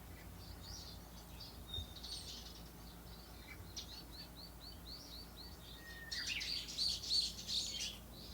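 Wild songbirds chirping and singing: scattered high chirps, a quick run of repeated notes at about six a second midway, then louder, overlapping calls for the last two seconds.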